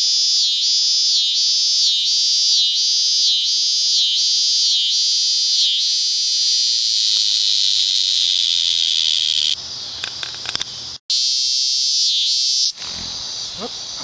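Cicadas singing loudly: a shrill, high buzz that pulses about three times every two seconds, then runs on as a steady drone from about six seconds in. The level drops suddenly near ten seconds and again near the end.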